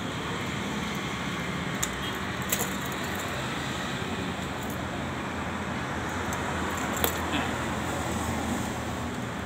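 Thin aluminium strip cut from a drink can being folded and handled, giving a few light metallic clicks and crinkles, the sharpest about seven seconds in, over a steady low background hum.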